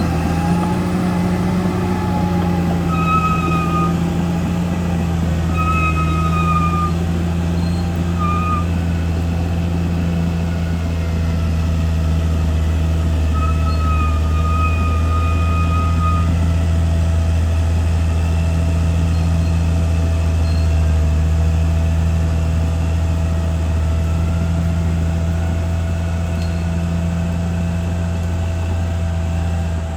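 CAT D6R XL bulldozer's diesel engine running steadily under load, with a deep, even drone. A few short high-pitched squeals come and go over it.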